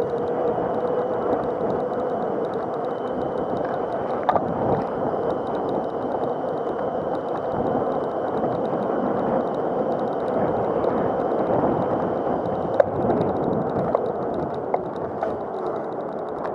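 Razor MX500 electric mini dirt bike being ridden on paving: a dense, steady rush of tyre and wind noise with a faint whine from the electric motor and chain drive in the first few seconds, and a few sharp knocks as the wheels cross bumps, the loudest about thirteen seconds in.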